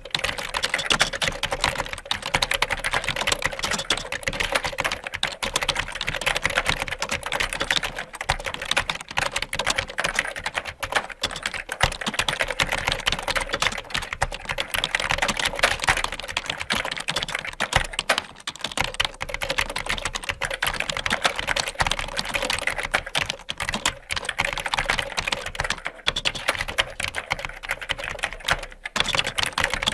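Computer keyboard being typed on fast and without pause, a dense run of key clicks.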